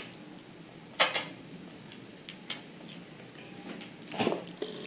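Close-miked eating of a sauced fried chicken wing: a few sharp crunching, smacking bites and chewing. The loudest crunch comes about a second in, with another cluster near the end.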